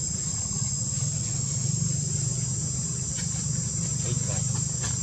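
Steady high-pitched chorus of insects in forest undergrowth, with a low hum underneath.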